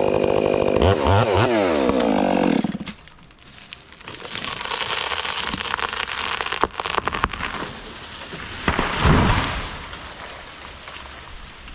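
A chainsaw cuts, its pitch swinging up and down, then drops off about three seconds in. A pine comes down: a rush of swishing branches with sharp cracks, then a heavy thud about nine seconds in, followed by debris rustling down.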